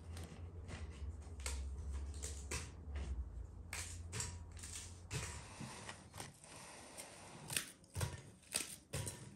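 Dry tea biscuits being snapped by hand into a glass bowl: a run of crisp, irregular cracks and crunches, about one or two a second.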